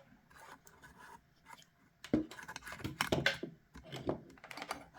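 A cable being handled and plugged in: faint rustling and ticks, then from about two seconds in a run of small clicks and knocks.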